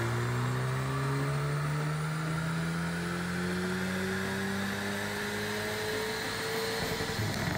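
Hyundai i30N's turbocharged four-cylinder engine on a dyno pull under full load, its GPF replaced by a straight-through delete pipe: the revs climb steadily for about seven seconds, then the throttle is lifted near the end and the revs fall.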